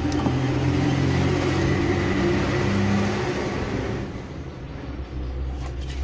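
A motor's drone with low tones that swells over the first few seconds and then fades, typical of an engine passing by.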